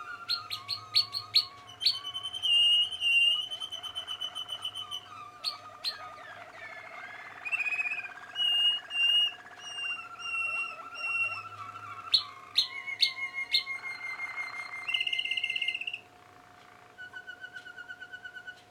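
Young Malinois waterslager canaries singing: a varied song of sharp repeated clicking notes, long even trills and dense bubbling rolls, with short breaks between phrases. The song gets quieter for the last few seconds.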